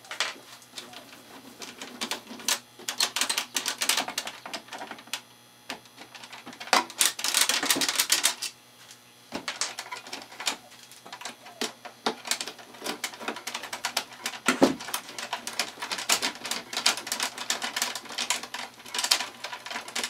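Screwdriver and small metal screws clicking and rattling against the metal case of a suitcase-style EPROM programmer as its four case screws are taken out, with a longer burst of rattling about seven seconds in.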